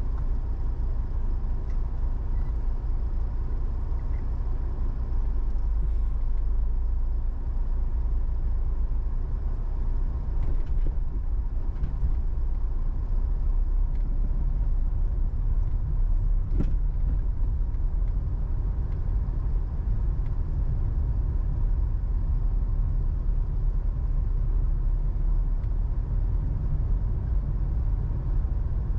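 A diesel car driving steadily along a road: a constant low rumble of engine and tyres, with a faint steady whine. A couple of faint knocks come about ten and sixteen seconds in.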